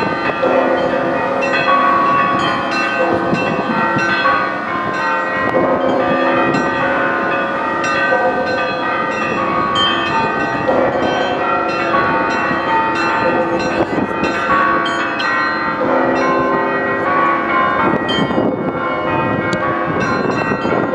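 The Kronstadt Naval Cathedral's Russian Orthodox church bells ringing: several bells struck in a continuous rhythmic peal, their notes ringing on and overlapping.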